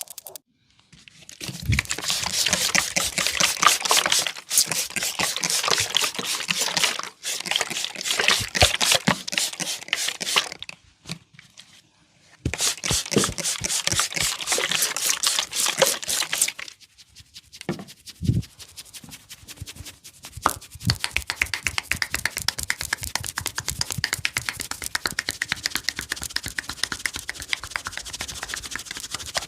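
Hands rubbing and scratching vigorously through hair and over the scalp in fast, rasping strokes during a head massage. The strokes come in spells of several seconds, stopping briefly twice, with a few sharper slaps or knocks between spells.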